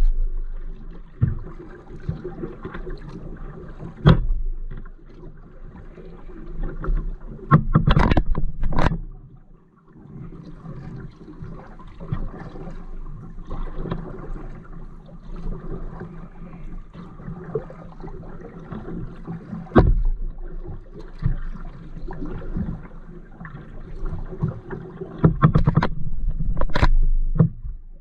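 Kayak being paddled: paddle blades dipping and splashing through the water with a steady low rumble against the hull. Several sharp knocks are scattered through it.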